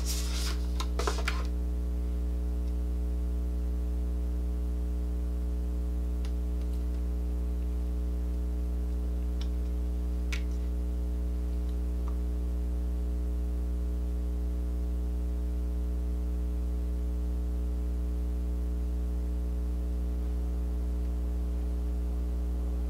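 Steady low electrical hum with a stack of evenly spaced overtones. A brief rustling in the first second or so and a few faint ticks around the middle.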